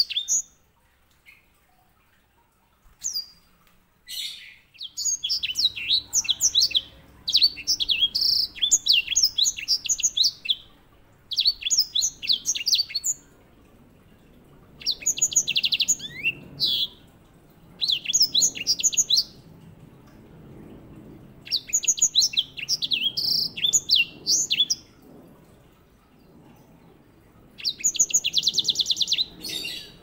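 Grey singing finch (Serinus leucopygius) singing in repeated bursts of quick, varied high twittering, each phrase a second or two long with short pauses between. Near the end it runs into a fast rolling trill.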